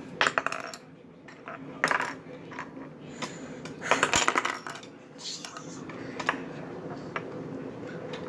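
Small plastic toy spinning-top pieces clicking and clattering against a hard tabletop: a handful of sharp knocks and rattles, the longest cluster about four seconds in.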